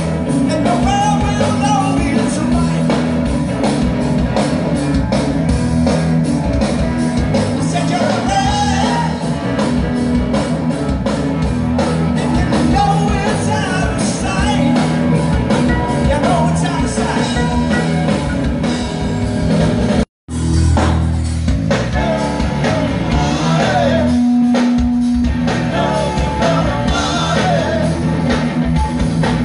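Live rock band playing through a PA, with a singer's lead vocal over electric guitar, bass and drums, loud and continuous. The sound cuts out completely for a split second about two-thirds of the way through.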